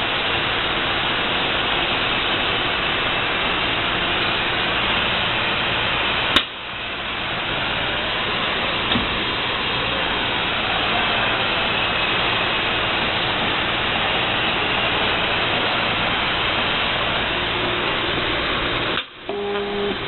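Steady mechanical noise, as of a machine running, with a sharp click about six seconds in and a brief drop near the end.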